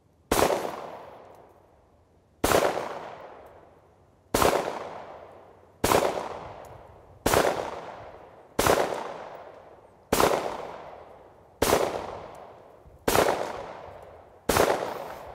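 Rock Island Armory 5.0 9mm semi-automatic pistol fired ten times in slow, steady succession, about one shot every second and a half. Each shot is a sharp crack followed by a long fading echo.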